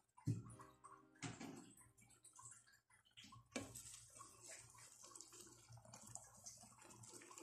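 Faint bubbling and sloshing of a cream sauce simmering in a frying pan, with a few soft scrapes as a wooden spatula stirs it.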